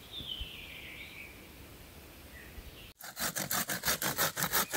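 A hand saw cutting wood, starting about three seconds in, in quick even back-and-forth strokes, about five a second. Before it, faint outdoor ambience with a brief high, falling call.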